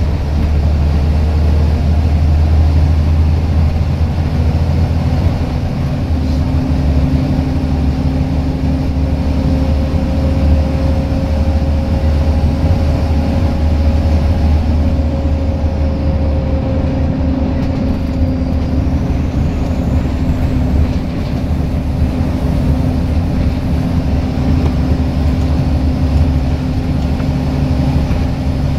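Scania L94UB single-decker bus engine running hard under heavy throttle, heard from inside the passenger saloon as a steady, loud, deep drone with a faint higher whine that swells and fades in the middle.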